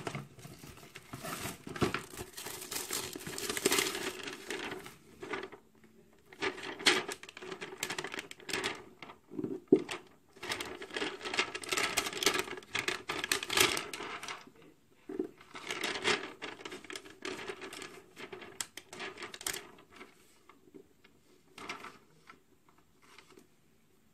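A clear plastic sticker sheet crinkling as it is handled and stickers are peeled off it and pressed onto a notebook cover, in irregular bursts that die down near the end.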